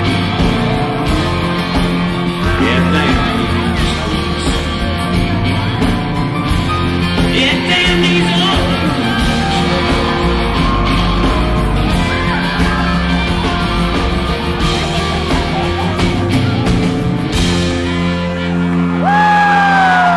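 Live country-rock band playing an instrumental passage with guitars, bass and drums, and a crowd yelling and whooping over it. A loud falling yell stands out near the end.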